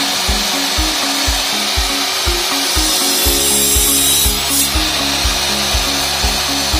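Background music with a steady beat of about two low thumps a second and a sustained pitched line, over a steady hiss-like noise.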